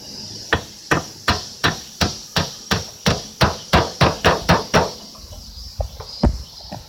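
Hammer blows: a steady run of about a dozen sharp strikes at roughly three a second, then two or three slower, spaced-out blows near the end.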